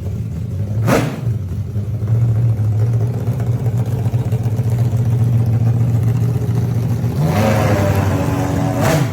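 Motorcycle's Ferrari V8 engine blipped once sharply about a second in, then idling steadily, then revved up near the end and held at higher revs.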